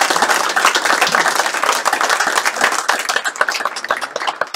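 Small audience applauding, the clapping thinning out toward the end.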